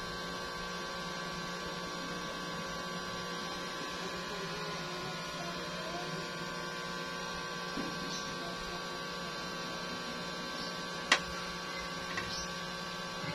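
A steady hum made of several unchanging tones, with a single sharp click about eleven seconds in.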